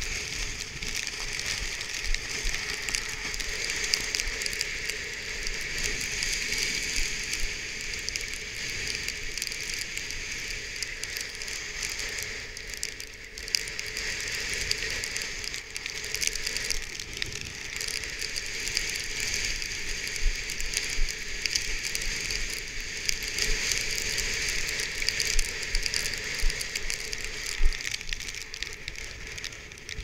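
Strong wind of about 30 knots, gusting stronger, blowing over the camera's microphone: a steady rushing hiss full of constant crackling, with occasional louder gusts. A kitesurf kite's nylon canopy is flapping in it.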